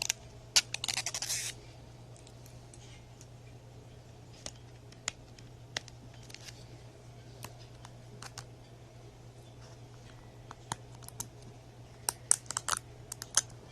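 Hands handling a plastic Blu-ray case and its wrapping: scattered clicks and taps, a rapid crackle for about a second near the start, and a quick cluster of clicks near the end.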